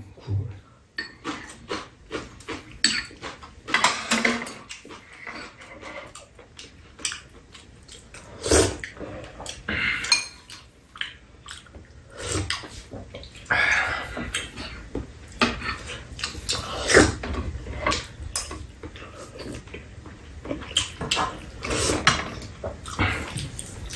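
Metal spoons and chopsticks clinking and scraping against bowls, a pan and a metal tray as two people eat, in irregular light clicks.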